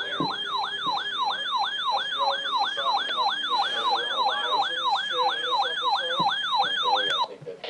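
Electronic siren-like alert tone from a broadcast: a pitch sweeping downward over and over, about three times a second, then cutting off suddenly near the end.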